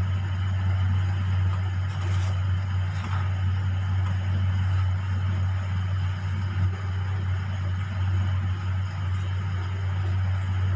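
A steady low hum, constant in level throughout, over faint background noise.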